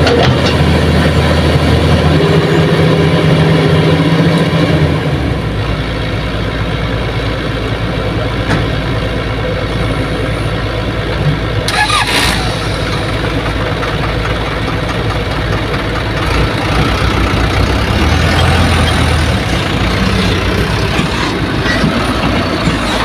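Diesel engines of a Hitachi hydraulic excavator and a loaded dump truck running. The steady engine hum changes about five seconds in, and there is a short hiss about halfway through. The loaded truck pulls away near the end.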